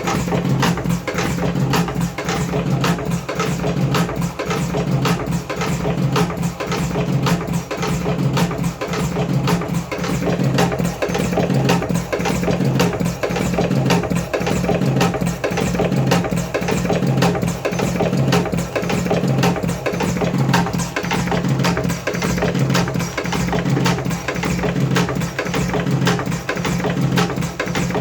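Background music with a busy percussion beat.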